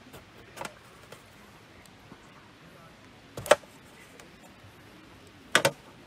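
Kitchen knife cutting through an eggplant and knocking on a metal tray: a faint cut, then a loud sharp one about three seconds later, and a quick double near the end.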